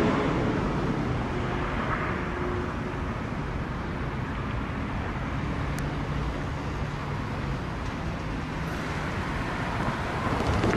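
Road traffic: cars driving past over the crossing, loudest at the start, over a steady low hum.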